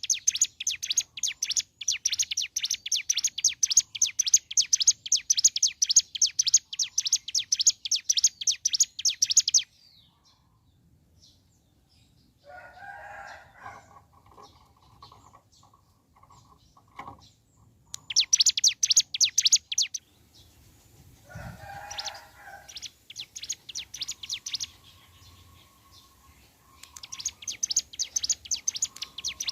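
Ciblek gunung (a mountain prinia) singing its rapid, high rattling trill (the 'bren'): one long unbroken burst of about ten seconds, then after a pause several shorter bursts. Lower, rougher calls sound in the gaps.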